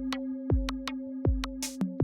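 Electronic music with a drum-machine beat: a kick drum that drops in pitch about every three-quarters of a second, quick hi-hat ticks between, and a held low synth note underneath. A burst of hiss like a snare sounds just before the end.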